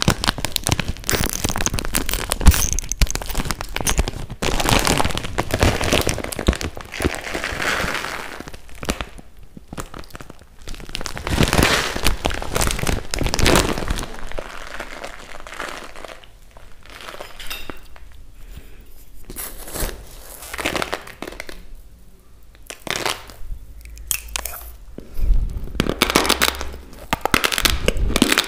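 A clear plastic bag of raw rice crinkling and rustling as it is handled and a hand digs into the grains, in a close, busy run of crackles with short quieter spells. Crunching of raw rice grains mixes in.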